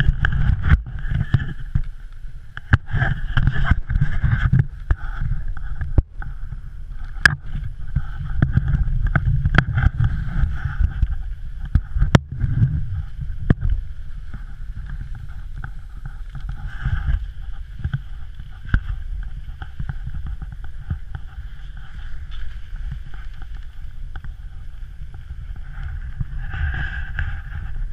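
Wind buffeting a GoPro's microphone during snowkiting: a gusty low rumble, with a faint steady high whine over it and scattered sharp knocks.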